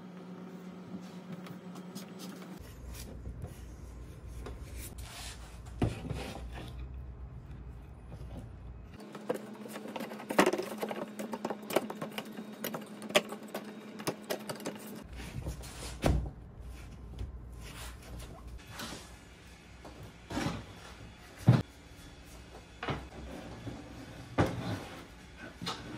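Scattered knocks and taps of wooden chair parts as turned spindles are fitted and pressed into the glued rails of a chair back, over a steady low hum.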